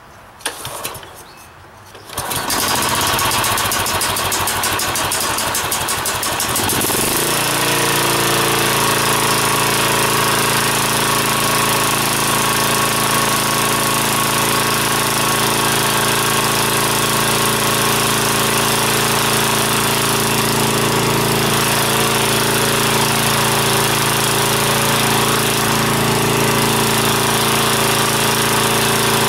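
Kawasaki FC420V 14 hp single-cylinder engine on a Scag walk-behind mower being started: a couple of short strokes, then it catches about two seconds in and settles into steady running about seven seconds in. This is the first run after an oil change, to push fresh oil into the new filter.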